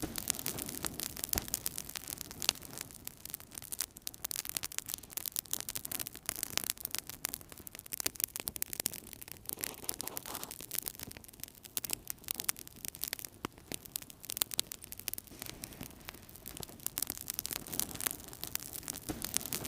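Fire burning in a fireplace, crackling with many quick, irregular pops over a soft steady rush.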